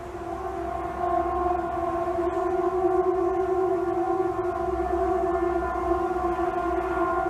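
A loud siren-like wail: one steady, held tone with several overtones that swells in over the first second or so and barely changes pitch.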